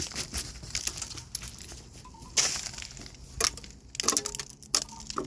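A glaze of ice from freezing rain crunching and cracking, a string of sharp brittle clicks and crackles with a louder crunch about halfway through and a flurry of crackles near the end.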